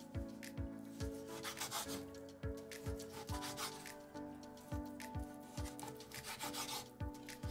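Chef's knife chopping an onion on a bamboo cutting board: quick, irregular taps and scrapes of the blade through the onion onto the wood. Background music with a steady beat plays underneath.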